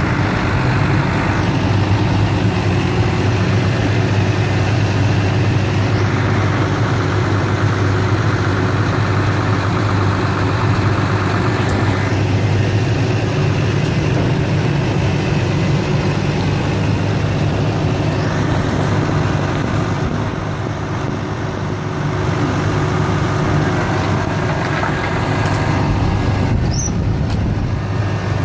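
Grab lorry's diesel engine running steadily at idle, a continuous low hum.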